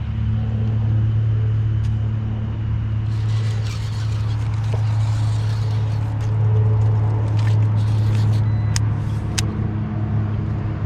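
Boat motor running at a steady low hum, with some light clicks and splashy hiss in the middle.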